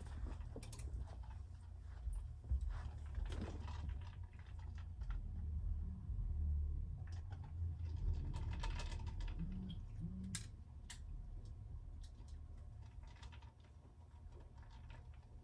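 Quiet rustling and scattered small clicks of a person moving about and sitting down on a bed while handling small objects, over a low steady hum.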